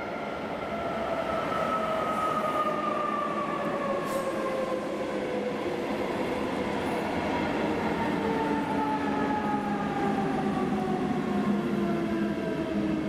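SBB Re 460 electric locomotive hauling double-deck coaches past at close range: a steady rumble of wheels on rail, with the locomotive's electric motor whine sliding slowly down in pitch. The rumble builds over the first couple of seconds as the train nears.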